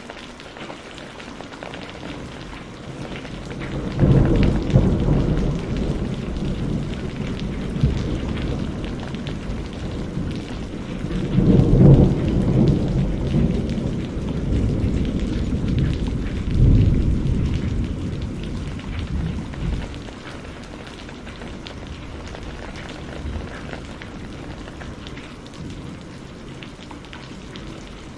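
Steady rain with a long peal of rolling thunder that breaks in suddenly about four seconds in, swells twice to its loudest, and rumbles away over about sixteen seconds, leaving the rain.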